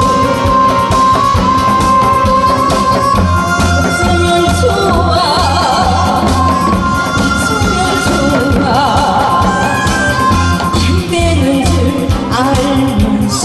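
A voice singing a song over a backing track, with long held notes and a steady low bass beat.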